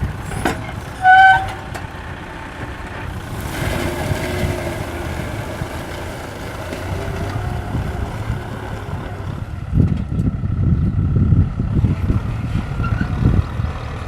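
Kubota M6040 SU tractor's four-cylinder diesel engine running steadily. A short, loud, high horn-like tone sounds about a second in. The engine grows louder and rougher from about ten seconds in.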